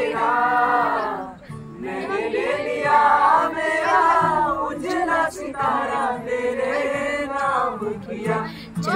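A song with several voices singing together, in phrases broken by short pauses about a second and a half in and near the end.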